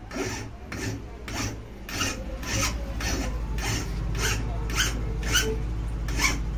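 Steel hand file rasping back and forth on a metal sewing-machine link, in steady strokes about two a second. The part is being filed down because it fits too tightly to go in.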